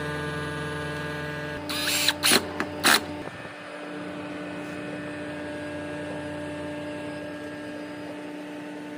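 A steady machine hum that shifts to a thinner, quieter tone about a second and a half in. A quick cluster of sharp clacks, the loudest sounds here, comes between two and three seconds in.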